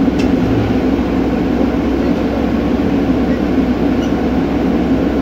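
Heavy-equipment diesel engine running steadily, with an even, unchanging tone.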